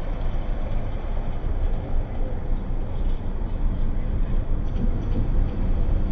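D19E diesel-electric locomotive running as it approaches with its passenger train: a steady low rumble that grows slightly louder.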